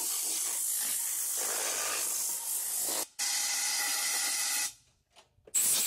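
A steady hissing rush that stops abruptly about three seconds in, starts again a moment later, stops near five seconds and starts once more near the end.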